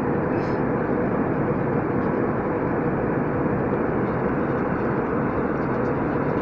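Steady cabin noise of an Airbus jet airliner in flight: the even roar of its turbofan engines and the airflow, with a steady hum beneath it.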